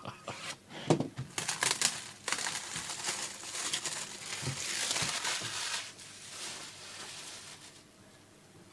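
Plastic packaging crinkling and crackling, with scattered sharp clicks, as a trading-card pack is handled and opened; it fades out after about six seconds.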